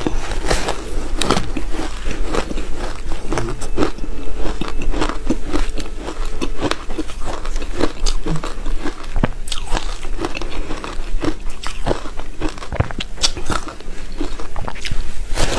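Close-miked biting and chewing of soft powdery ice: a dense, continuous run of small crunches and crackles.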